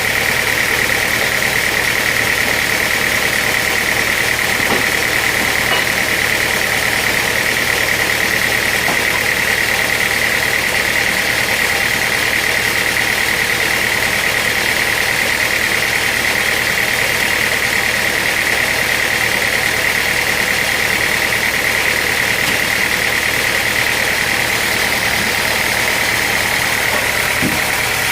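Sawmill machinery running steadily, a loud even engine-like noise with a constant high-pitched whine over it.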